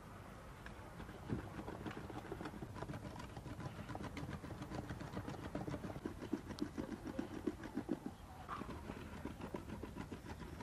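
A large two-handled crescent knife rocking through raw beef on a wooden stump block, hand-mincing the meat. The blade strikes the wood in rapid, uneven knocks.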